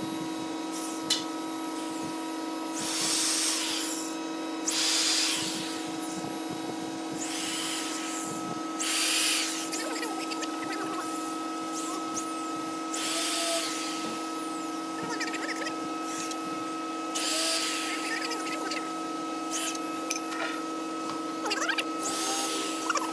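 Corded electric drill driving screws into a wooden cabinet frame in short bursts, about seven of them at uneven intervals, each about a second long. A steady hum underneath.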